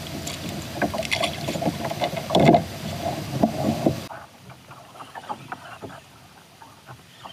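Knocks and handling noises aboard a fishing kayak, with a louder thump about two and a half seconds in. About four seconds in the sound drops abruptly to quieter, scattered small clicks.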